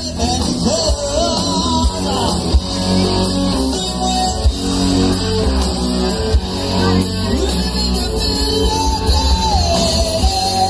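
Live rock band playing: electric guitars and a drum kit, with a singer's voice carrying the melody over the band.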